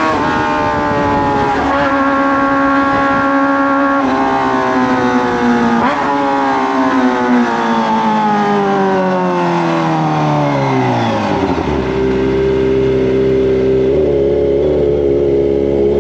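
Kawasaki ZX-25R's high-revving inline-four through a Racefit Slash slip-on exhaust. The engine note is held high with brief dips about every two seconds, then falls in one long glide as the bike slows, settling into a steady lower running note for the last few seconds.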